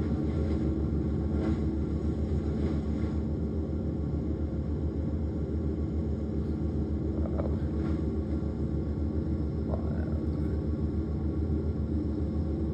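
Bandit Intimidator wood chipper running at a steady speed, its engine giving a low, even drone, with a few faint knocks.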